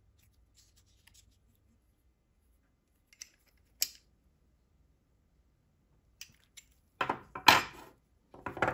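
Metal clicks and clinks of a steel wrench on brass gas fittings as they are tightened: one sharp click just before the middle, then a louder cluster of clanks and clatter from steel tools on a wooden bench near the end.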